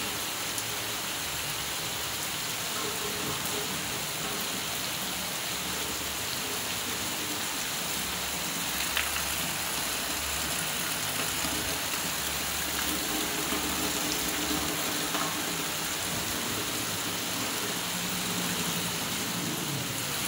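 Heavy rain falling steadily, an even continuous hiss.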